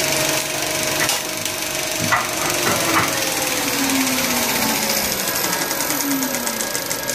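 Cinemeccanica Victoria 5 35mm film projector running, a steady rapid mechanical clatter from its film-transport mechanism.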